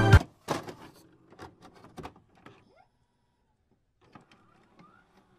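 Background music cuts off abruptly, followed by sparse faint glitch-style digital sound effects: scattered clicks and crackles, short electronic blips and a brief rising chirp near the end.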